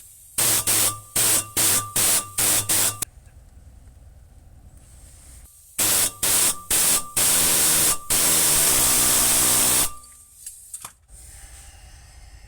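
Pneumatic air hammer firing in short bursts on the CV shaft, trying to drive it out of the wheel hub: about six quick bursts over the first three seconds, then a few more from about six seconds in that end in one continuous run of nearly two seconds.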